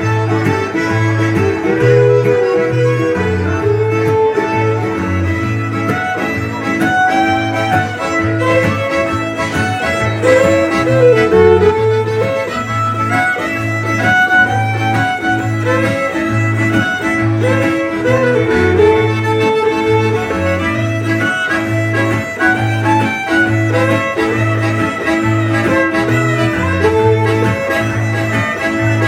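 Live Cajun-style band playing an instrumental: fiddle carrying the melody with sliding notes, over a diatonic button accordion and strummed acoustic guitar keeping a steady, bouncing beat.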